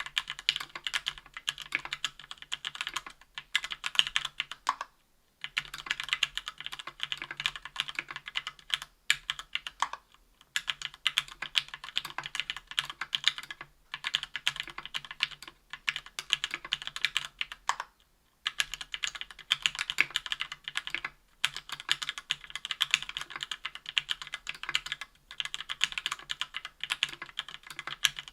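Fast, continuous typing on SP-Star Nana linear switches (65g, lubed) in a KBDfans Tofu 60% aluminum keyboard with GMK keycaps: dense runs of keystroke clacks broken by brief pauses every few seconds.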